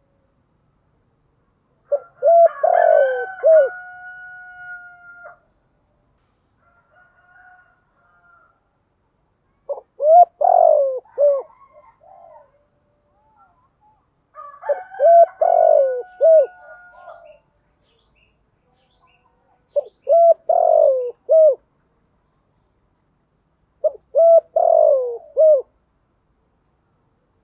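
Spotted dove (cu gáy) cooing: five short phrases of quick, throaty coos a few seconds apart. This is a recorded lure call of the cooing and calling kind used to draw wild doves in.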